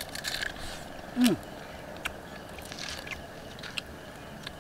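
Cooked mud crab shells being cracked and chewed by hand and mouth: scattered small crunches and clicks. A short falling grunt from a person about a second in is the loudest sound.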